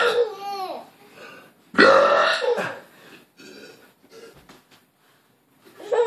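A man burping loudly twice, one burp at the very start and another about two seconds in. A baby's high, squealing laughs come between the burps and again near the end.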